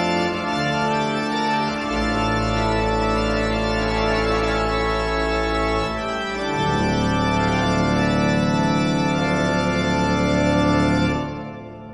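Background organ music: long held chords that change about two seconds in and again after six seconds, fading out near the end.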